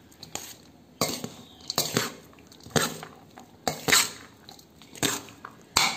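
Cooked rice being stirred and tossed in a stainless steel bowl, the stirring scraping and clinking against the metal about once a second.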